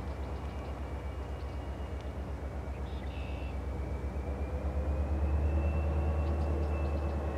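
EMD GP30 diesel locomotive's 16-cylinder two-stroke engine rumbling with an even low pulse, growing louder as it approaches. A faint, thin high-pitched tone runs over it.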